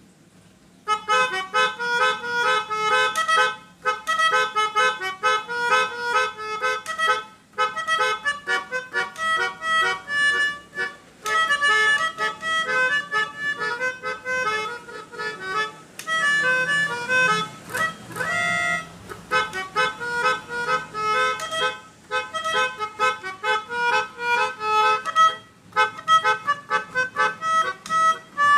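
Pianika (melodica) playing basuri bus-horn 'telolet' tunes. The tunes come as runs of quick, short notes, starting about a second in and broken by brief pauses every few seconds.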